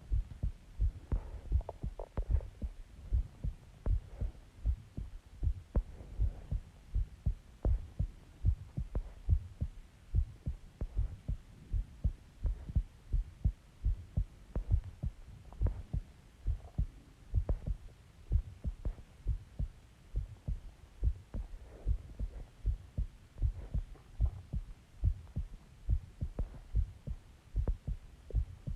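A person's heartbeat recorded close up: a steady, regular rhythm of low thumps.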